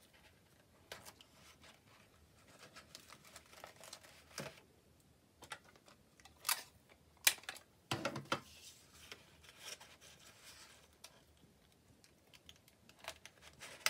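Light rustling of paper and tape, with scattered soft clicks and a few sharper snaps near the middle, as adhesive tape is pressed onto paper cutouts and a paper plate.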